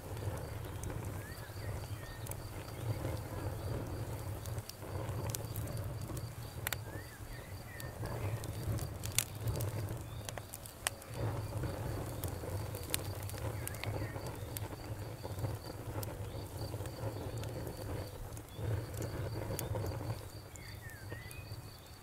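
Wood fire burning in a fireplace: logs crackling with scattered sharp pops and snaps over a steady low rumble of the flames. The loudest pop comes about nine seconds in.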